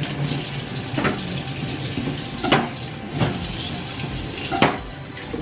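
Water running from a kitchen tap as carrots are rinsed, with four short knocks against the sink.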